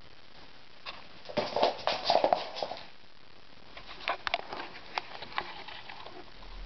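Quick flurries of pattering and knocking: a Bengal kitten's paws scrabbling and landing on a laminate floor as it pounces after a laser dot. A loud burst comes about a second in, and a lighter one just past the middle.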